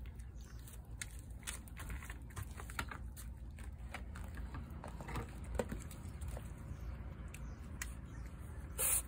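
Feral cat eating wet food from a paper plate: many small, irregular wet clicks of chewing and licking. A brief, loud rushing noise comes right near the end.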